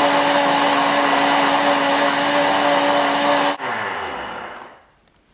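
Countertop blender running at full speed, blending soaked Irish moss into hazelnut milk, with a steady motor hum. It is switched off about three and a half seconds in and the motor winds down over the next second.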